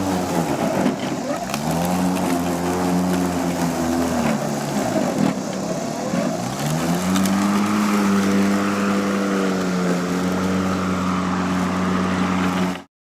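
Echo 58V battery-powered lawn mower running while mowing, its electric motor hum sagging in pitch and recovering several times under load. The sound cuts off suddenly near the end.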